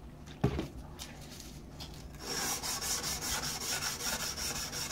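A single knock about half a second in, then 220-grit sandpaper stroked rapidly back and forth along the steel bevel of an old drawknife blade, a steady rhythmic scraping as the edge is sharpened by hand.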